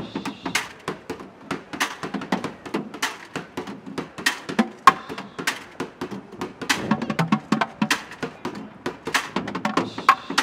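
Plastic buckets drummed with sticks: a fast, busy rhythm of sharp, hollow hits, with one especially loud crack about five seconds in.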